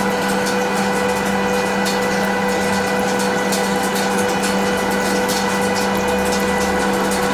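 CNC lathe running: a steady mechanical hum with several held tones, and scattered sharp clicks over it.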